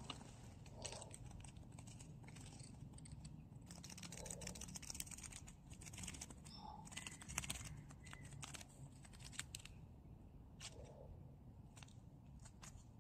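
Faint rustling and small irregular clicks from fingers and a knit glove handling a butterfly over a nylon mesh net, busiest in the middle.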